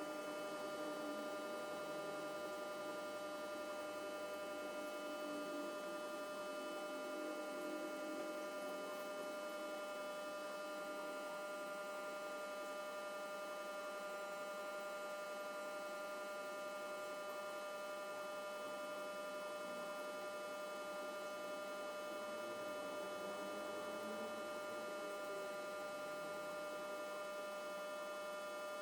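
Steady electrical hum with a thin whining tone above it, unchanging throughout.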